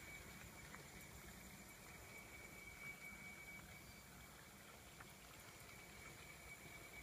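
Near silence: faint outdoor background with a thin, steady high tone and a low rumble.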